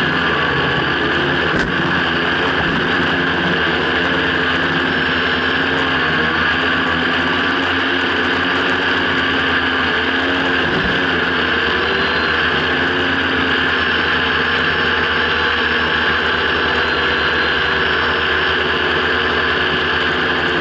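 Quadcopter's electric motors and propellers buzzing steadily in a low hover, heard close-up from a camera mounted on its underside, the pitch wavering slightly as the motors hold it steady. A single short click comes a little under two seconds in.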